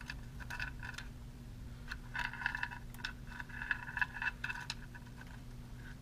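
Metal scraping and clinking as a magnet on a wire is run around inside a John Deere 1025R's transmission case through an opening in its underside, to pick up the gunk settled there. Scattered clicks at first, then a busier run of scraping from about two seconds in that tails off near the end.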